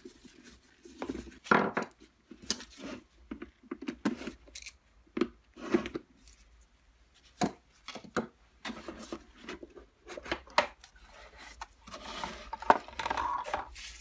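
Irregular clicks, taps and knocks of hand work on a hard plastic vacuum-cleaner motor housing: screws being taken out with a screwdriver and the housing and its cover knocked and scraped on a wooden workbench, with one louder knock near the end.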